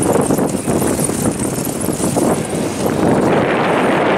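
Wind buffeting the microphone with road noise from travelling along a paved road, a loud, steady rushing without any clear tone.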